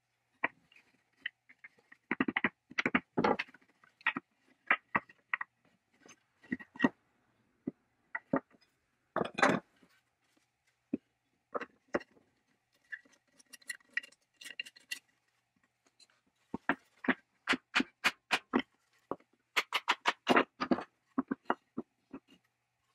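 Rusty iron fittings, a washer and old wooden parts of an antique beam drill being handled and taken apart by hand on a wooden workbench: a string of small metal clinks, taps and wooden knocks, in clusters, with a brief ringing rattle midway.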